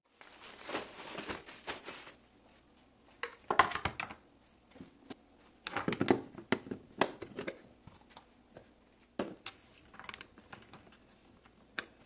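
Clear plastic food storage box and its lid being handled on a counter: a rustle of plastic, then clusters of sharp plastic clicks and knocks, loudest around four and six seconds in, with a few single clicks after.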